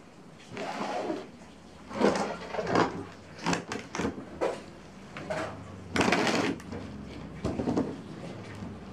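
Plastic packaging crinkling and rustling in a series of irregular bursts as a bonsai stock tree's root ball is unwrapped by hand, the longest burst about six seconds in.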